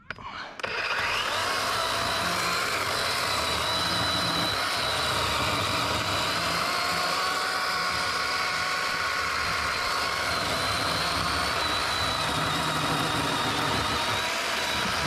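DeWalt XR 20V 12-inch battery chainsaw starting up about half a second in and running steadily with an even electric-motor whine and chain noise while it cuts a dead branch.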